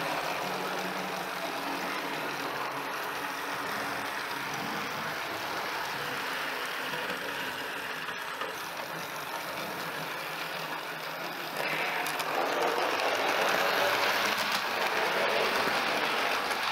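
OO gauge model train, a GWR tank engine hauling coaches, running along the track with a steady running noise that gets louder about twelve seconds in.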